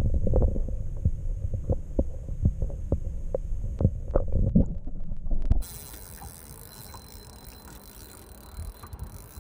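Muffled low rumble of water against a camera's microphone held underwater, with scattered sharp clicks and knocks. About halfway through it cuts off suddenly, giving way to quieter open-air background with a faint steady high tone.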